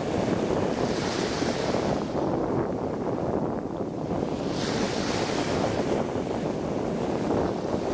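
Small waves breaking and washing up a sandy beach, the hiss of the wash swelling twice, with steady wind buffeting the microphone.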